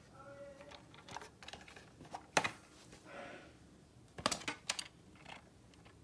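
Plastic fire alarm horn-strobe housings being handled and turned over: scattered sharp clicks and knocks, the loudest about two and a half seconds in and a quick cluster just after four seconds.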